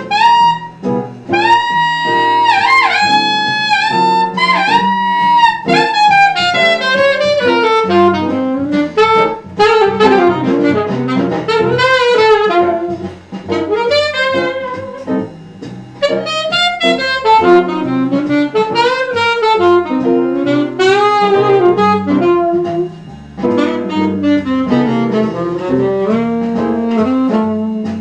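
Alto saxophone played on a vintage Meyer 5 mouthpiece, a jazz melody: long held notes in the first few seconds, then quicker runs moving up and down.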